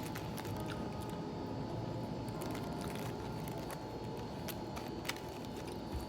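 Steady restaurant room noise with a few faint short clicks scattered through it.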